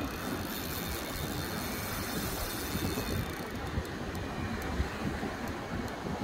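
Steady wind rumbling on the microphone, with the wash of surf behind it.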